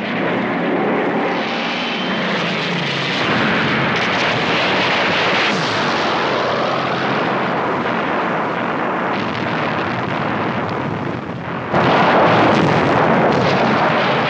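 Battle sound effects on a film soundtrack: a loud, dense, continuous roar with a few falling whines, turning abruptly louder about twelve seconds in.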